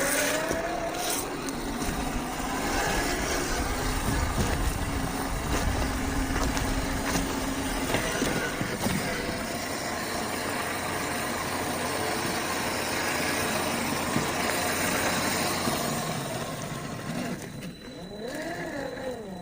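Brushed 550 electric motor and gear drivetrain of a 1/10 RC rock crawler whining as it drives, its pitch drifting and near the end dipping and rising again with the throttle, over a steady noise.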